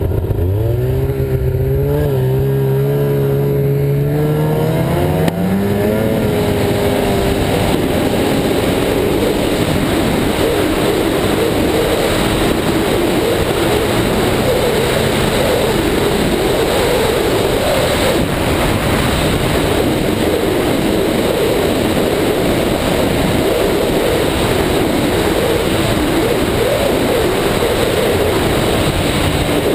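Ski-Doo snowmobile engine climbing in pitch as the sled accelerates over the first several seconds. It then holds a steady high pitch at speed under a steady rushing noise.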